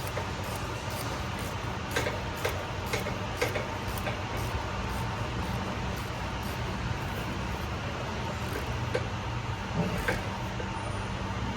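Hand ratchet clicking in short spells as the brass bolt is run into the truck's air-dryer cartridge, over a steady low hum.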